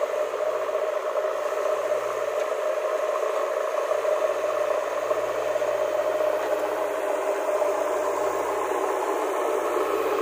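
JCB 3DX backhoe loader's diesel engine running steadily under load while its front loader bucket pushes loose soil.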